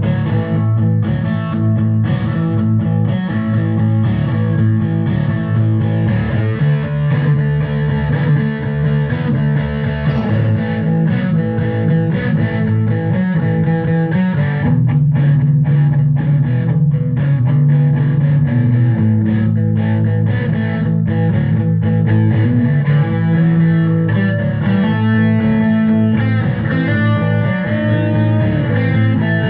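Background rock music, led by electric guitar over bass, with a steady beat.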